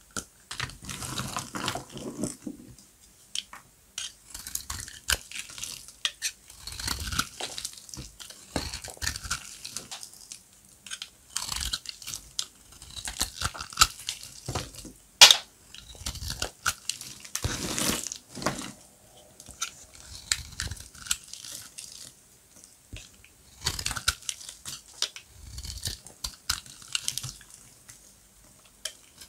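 Dry bar soap being cut, with irregular crackling and crunching as it breaks apart. One sharp, loud snap comes about halfway through.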